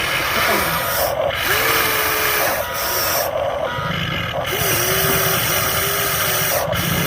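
Small electric motors of radio-controlled construction models whirring as they work, the pitch wavering up and down and cutting out briefly several times as the controls are moved.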